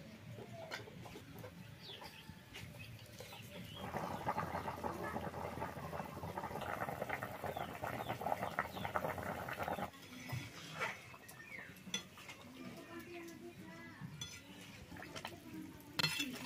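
Chicken curry boiling hard in a metal wok, a dense bubbling and spitting that starts about four seconds in and cuts off abruptly near ten seconds. A spatula clatters and scrapes against the wok near the end.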